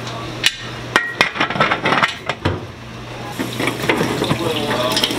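Metal pot lid clattering onto a large aluminium pot, several sharp knocks and clinks in quick succession. About three seconds in, a kitchen tap starts running into the sink.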